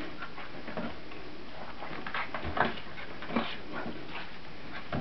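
32-day-old Brittany puppies at play: faint puppy whimpering among scuffling, with a few sharp knocks about halfway through and near the end.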